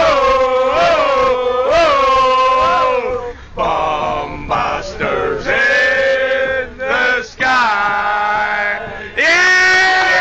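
Men singing loudly in a chant-like style, holding long wavering notes, with short breaks between lines.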